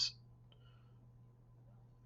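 Near silence: room tone with a faint steady low hum, just after the last word of speech trails off at the very start.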